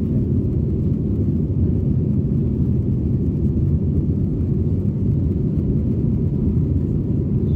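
Steady low rumble of an Airbus A321-231's IAE V2500 turbofan engines and rushing airflow, heard inside the passenger cabin during the climb after takeoff.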